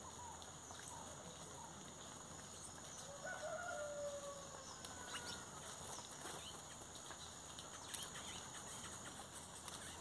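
Farmyard chickens clucking, with one drawn-out falling call about three seconds in. Under it run a faint steady high-pitched tone and scattered small clicks.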